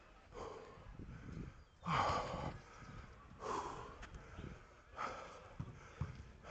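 Heavy breathing of a player running in a football match, close to the microphone: four hard breaths about a second and a half apart, the loudest about two seconds in.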